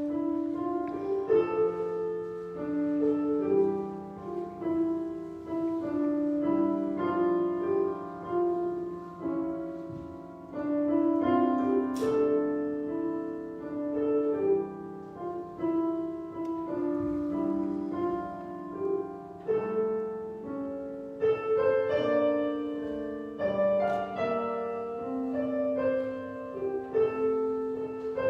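Slow, quiet instrumental piano music: sustained chords under a simple melody line.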